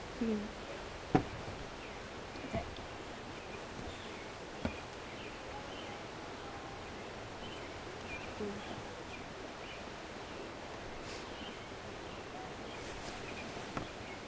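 Steady outdoor background noise with faint, scattered high chirps and a few soft knocks, the sharpest about a second in.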